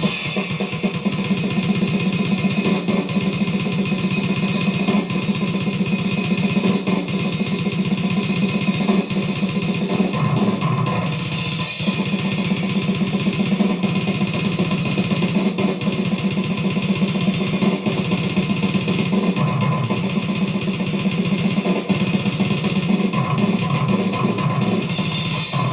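Death metal playing: fast, dense drumming with distorted guitar, continuous and at an even level.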